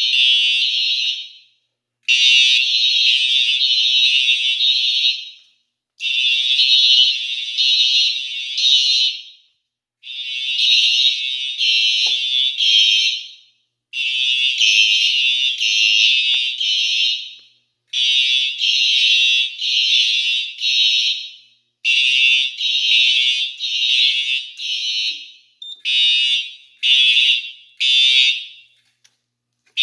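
Fire alarm sounders blaring in a temporal evacuation pattern. Clusters of shrill blasts repeat about every four seconds, each cluster followed by a short gap.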